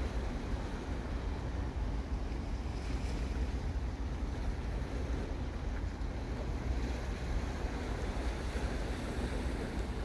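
Wind buffeting the microphone as a steady low rumble, over the continuous wash of sea waves against a rocky shore.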